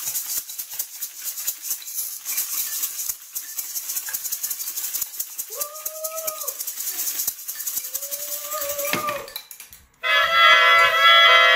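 Busy rattling and shaking of hand percussion, with two short sliding tones midway through. After a brief pause about ten seconds in, a saxophone blows one loud, sustained note.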